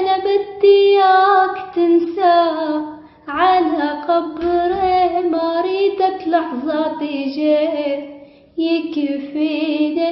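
A girl singing unaccompanied, with long held notes bent and ornamented along the melody. She breaks off briefly about three seconds in and again a little past eight seconds.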